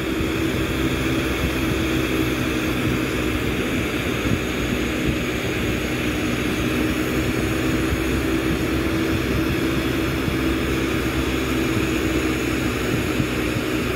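Glassblowing bench torch burning with a steady rushing roar, over a steady low hum.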